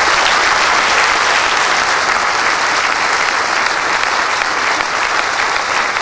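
Audience applauding: dense, steady clapping.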